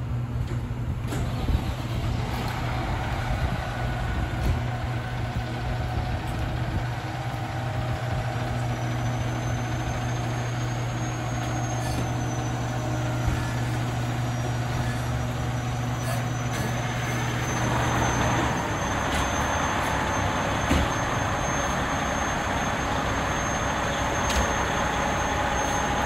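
Fire trucks idling in the station bay as the overhead door rolls open. A steady low hum stops about three quarters of the way through, and the truck noise then grows louder and fuller, with a faint high whine above it.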